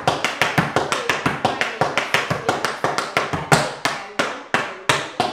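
Metal taps on tap shoes striking the floor in a fast, even run of sounds, about six a second, as the dancer performs a tap combination. After about three and a half seconds the strikes come slower and louder.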